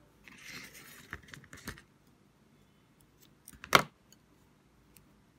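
White cotton yarn and a metal crochet hook being handled: a soft rustle with a few small clicks for the first second and a half, then one sharp click a little before four seconds in.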